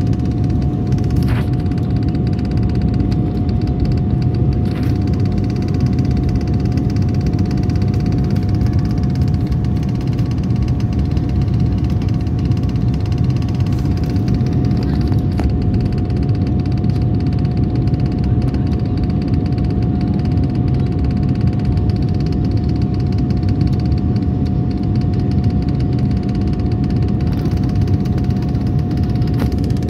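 Passenger aircraft cabin noise in flight: a steady low roar of engines and airflow with a constant whine held over it, unchanging throughout.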